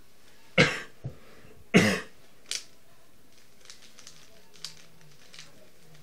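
Two short coughs about a second apart, followed by a few light clicks of a puzzle cube's layers being turned by hand.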